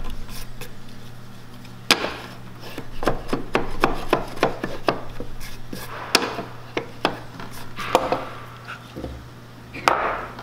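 Wooden mortise plane worked in short back-and-forth strokes across a hinge gain in a board. Its iron scrapes and shaves the last fibres from the recess, with quick light clicks and knocks of the wooden body on the work.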